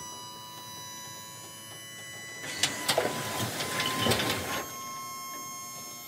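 PJ tandem dump trailer's electric-hydraulic pump whining steadily as it raises the bed loaded with brush. About two and a half seconds in comes a couple of seconds of rustling and cracking as the brush shifts in the tilting bed.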